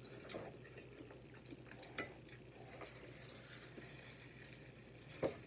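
Quiet close-up eating sounds: chewing, with light clicks of a metal fork against a plate and a louder knock near the end.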